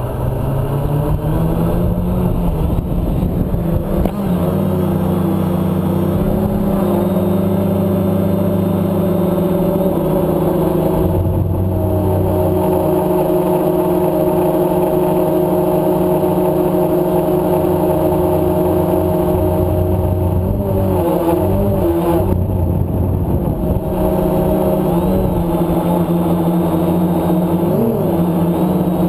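Quadcopter's electric motors and propellers heard from its onboard camera: a loud, steady multi-tone buzz. It rises in pitch about two seconds in as the craft lifts off, and wavers briefly in pitch around twenty and twenty-eight seconds in.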